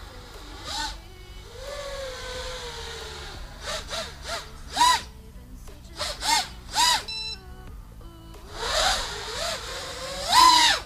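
FPV quadcopter's Happymodel SE2306 2700KV brushless motors and propellers, running on a 4S battery, whining in quick throttle punches. The pitch rises and falls several times, and the sound is loudest near the end as the quad passes close.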